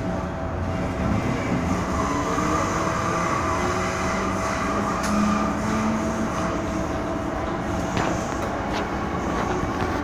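MTR M-Train (Metro-Cammell electric multiple unit) running through the tunnel, heard from inside the carriage: a steady rumble of wheels on rails with a whine that drifts slowly in pitch.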